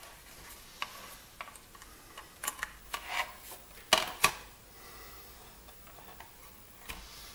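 Timex Sinclair 1000's plastic case being closed and handled on a tabletop: scattered light clicks and taps, with two sharper knocks about four seconds in.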